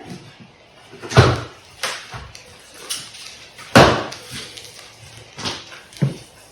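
A large cardboard bike box being pulled apart and handled by hand: a series of thumps and scrapes, the loudest about a second in and just before four seconds.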